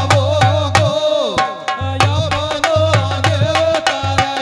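Instrumental interlude of Rajasthani folk music: a quick, steady hand-drum beat with a deep thump under most strokes and a wavering, ornamented melody on top. The deep thump drops out for about a second in the middle while the melody glides down.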